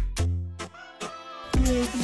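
Electronic background music with a beat and deep bass notes. It thins out for about a second in the middle, then comes back fuller with a melody near the end.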